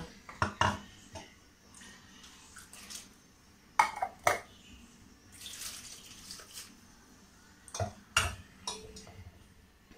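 Steel utensils clinking and knocking as a steel mixer jar and tumbler are handled against a pressure cooker pot while ground masala paste is poured in, with a splash of water poured into the mixer jar to rinse it out. The loudest sounds are two sharp clinks about four seconds in.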